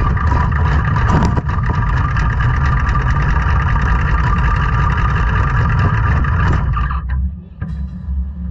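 Quarter midget race car moving under the onboard camera, a loud steady mechanical rumble and rattle that cuts off abruptly about seven seconds in as the car comes to a stop.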